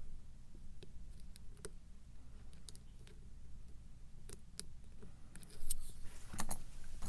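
Small metallic clicks of a lock pick and tension tool working the pin stack of a challenge lock, sparse at first, then a louder flurry of clicks and rattles near the end.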